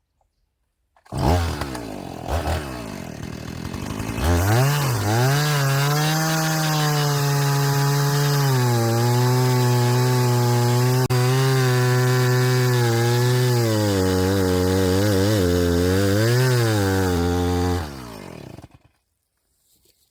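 Two-stroke chainsaw comes on about a second in, runs unevenly for a few seconds, then holds at full throttle, cutting a wedge into a log, its pitch dipping slightly now and then under load. Near the end it drops back and stops.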